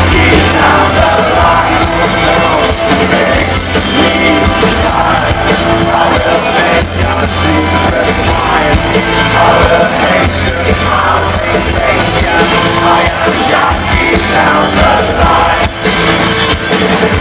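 Loud rock music with singing, playing steadily with a heavy bass line.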